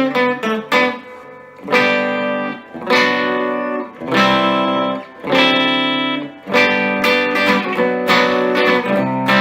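Epiphone Casino hollow-body electric guitar played through a Vox AC15C1X amplifier on its Top Boost channel. It opens with a few quick single notes, then moves to chords strummed and left ringing, about one a second.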